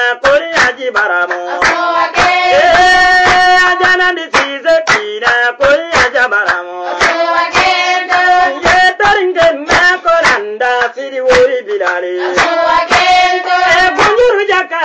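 Voices singing a melodic chant over steady handclaps, about two to three claps a second.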